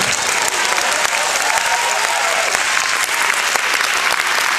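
Audience applauding, a dense patter of many hands clapping, with a few voices heard among it.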